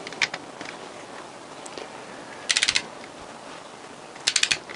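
Torque wrench's ratchet head clicking as crankcase bolts are tightened: a single click just after the start, then two quick bursts of about five clicks each, roughly two seconds apart.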